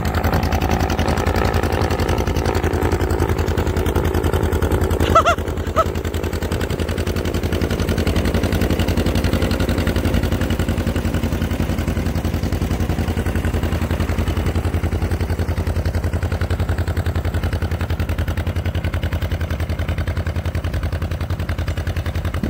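Tractor engine running steadily, a fast even low pulsing throughout. About five seconds in there are two short high-pitched chirps.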